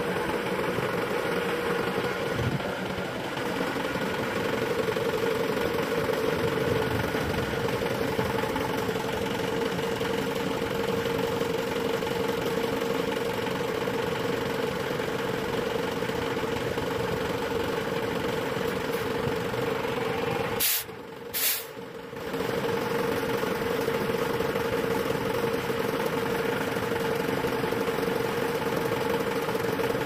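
Self-loading concrete mixer truck's diesel engine running steadily, with a strong steady hum. About two-thirds of the way in the sound drops out briefly, with two sharp clicks.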